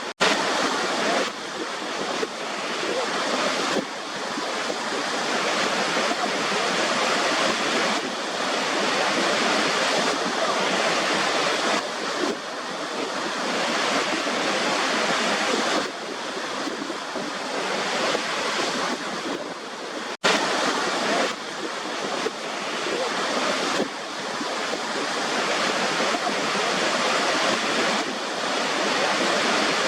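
Steady white-noise hiss with almost no bass, swelling and easing every few seconds like surf. It cuts out for an instant twice, just after the start and about two-thirds of the way through.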